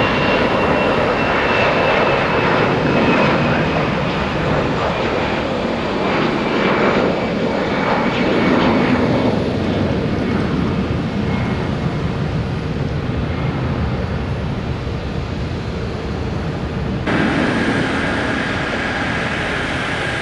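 Airbus narrowbody airliner's twin jet engines at takeoff power on the takeoff roll and climb-out: a steady roar with a high whine that slowly falls in pitch and fades as the jet passes and climbs away. Near the end the sound cuts abruptly to the steadier engine noise of a taxiing twin-engine jet.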